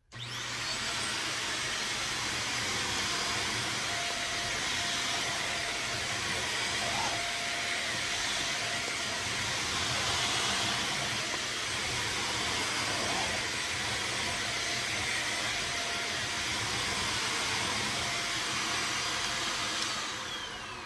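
Corded Black+Decker 3-in-1 stick vacuum switched on, its motor spinning up with a rising whine, then running steadily. Near the end it is switched off and winds down with a falling whine.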